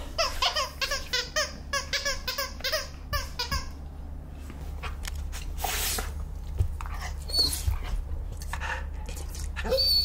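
A husky whining and yipping in a quick run of short, pitched calls, about three or four a second, for the first three or four seconds, then quieter mouthing sounds as it plays with a plush toy.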